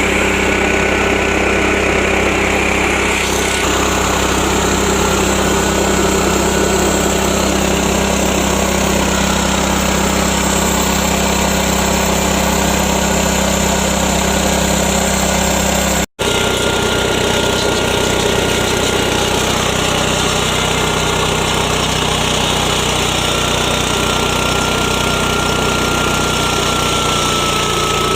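Single-cylinder MGX 210 petrol engine driving a Yasuka 3-in-1 mini rice mill and grinder, running steadily at a constant speed. The sound cuts out for an instant about halfway through, then carries on the same.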